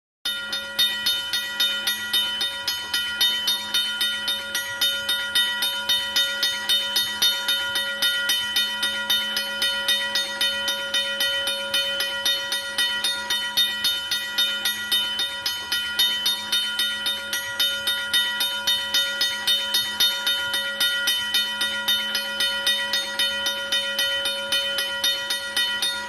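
Railroad crossing signal bell ringing continuously, struck at a steady rate of about two to three strokes a second, its ringing tone carrying on between strikes.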